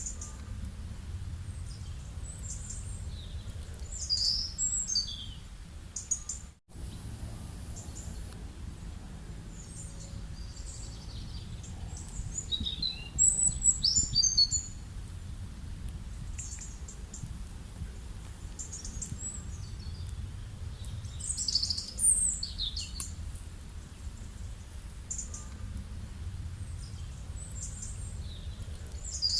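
Birds chirping in clusters of short, high calls a few seconds apart, over a steady low rumble. The sound cuts out for an instant about six and a half seconds in.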